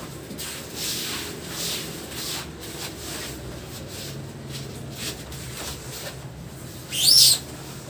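Soft rustling and scraping of things being handled and shifted on the floor, then near the end a brief, loud, high-pitched chirp or squeak that rises and falls in pitch.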